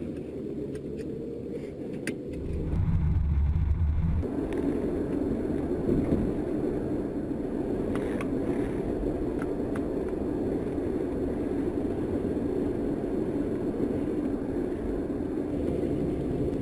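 Road and engine noise inside a moving car: a steady hum, with a louder low rumble for about a second a few seconds in.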